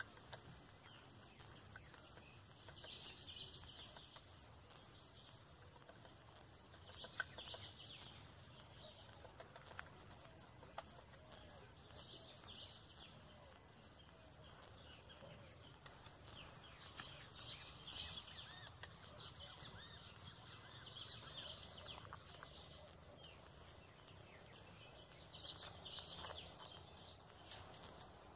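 Faint outdoor ambience: small birds chirping off and on over a steady, high insect trill, with two sharp taps a few seconds apart.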